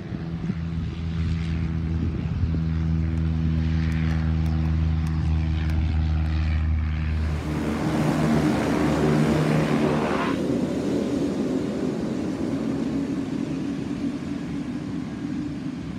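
Twin-engine propeller aircraft running with a steady, evenly pitched propeller drone. About halfway through it turns into a louder, rougher rush as the aircraft powers up and rolls along the runway, then slowly fades.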